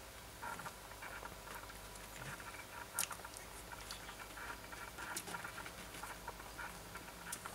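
Newborn Siberian husky puppies nursing at their mother: faint, irregular suckling clicks and tiny squeaks, with a sharper click about three seconds in.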